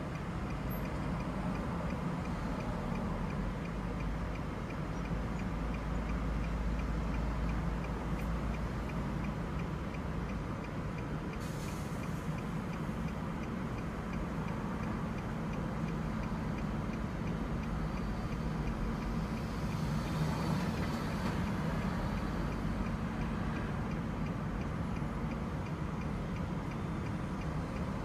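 Steady road and engine noise heard inside a car cabin, with a light, regular ticking over it.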